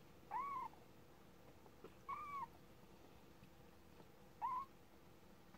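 A month-old kitten mewing three times, short high mews about two seconds apart, each rising and then dipping slightly.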